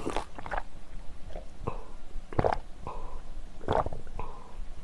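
A person gulping a drink from a glass, several separate swallows about a second apart, picked up close to the microphone.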